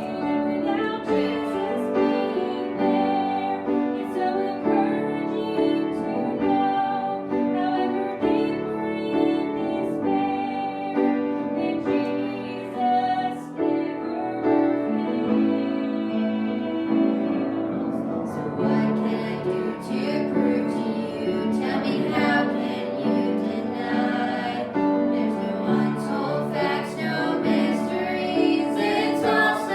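Music: a woman singing with piano accompaniment.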